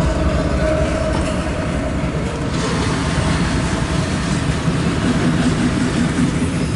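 Loaded CSX autorack freight train rolling past, a steady noise of steel wheels on the rails.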